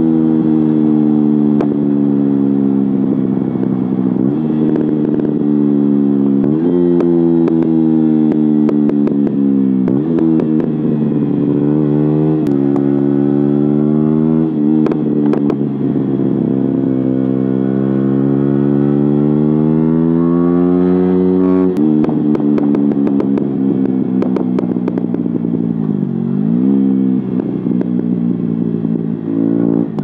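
KTM Duke 125's single-cylinder engine through a de-baffled Akrapovic exhaust, heard right beside the silencer while riding: it revs up through the gears, the pitch climbing and dropping back at each shift, easing off and picking up again twice. Scattered sharp pops crackle from the exhaust.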